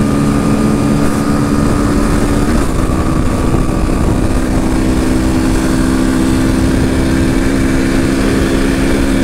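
Honda XR 250 Tornado single-cylinder four-stroke engine, fitted with a 3 mm oversize piston, running steadily at high highway speed under heavy wind noise. Its pitch dips briefly about two and a half seconds in.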